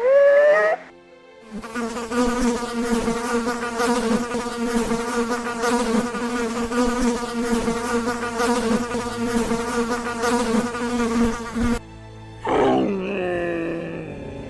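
A steady, even-pitched buzz like a flying insect's wings, running for about ten seconds and cutting off suddenly. A short rising call comes right at the start, and a falling call near the end.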